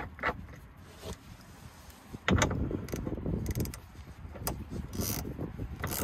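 Metal clanks and knocks from hands and tools working on car suspension parts: a loud clunk about two seconds in, then a second or so of clattering, and a few sharp clicks near the end.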